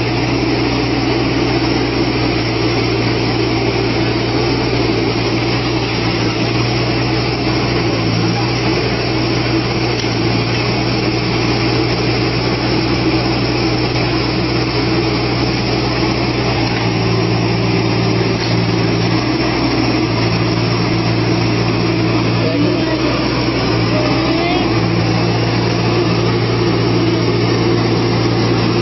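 Yanmar mini excavator's diesel engine running steadily under hydraulic load as the machine uses its boom to lever itself up onto the bed of a small dump truck. The engine note shifts a little now and then as the hydraulics take the strain.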